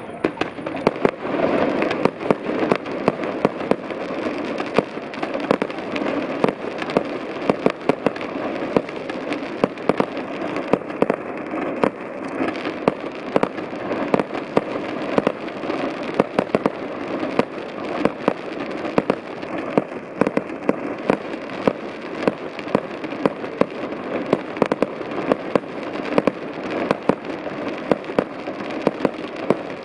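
Fireworks display: aerial shells bursting in quick succession, a dense, continuous string of sharp bangs and crackles, several each second.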